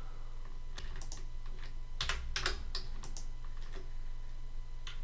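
Computer keyboard being typed on: an irregular series of key clicks, over a low steady hum.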